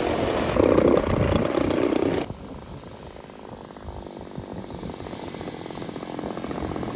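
Radio-controlled P-38 Lightning scale model's twin motors and propellers running loudly as it rolls along the runway close by. About two seconds in the sound drops suddenly to the fainter drone of a distant model plane, which slowly grows louder.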